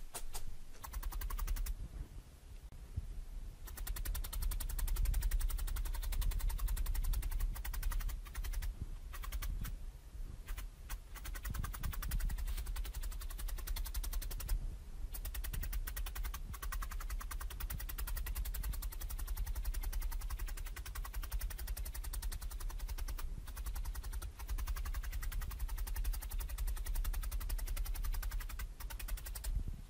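Felting needle jabbed rapidly and over and over through loose wool into a foam mat, played sped up, making a fast, dense run of taps with a dull thud from the work surface beneath.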